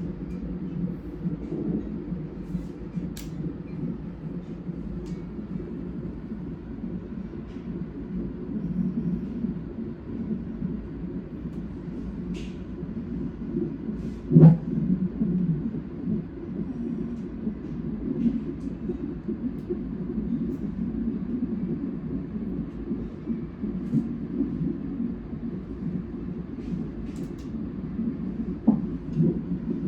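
Fetal heart monitor's Doppler speaker playing a fetal heartbeat during a non-stress test: a fast, rhythmic whooshing, with a louder thump about halfway through.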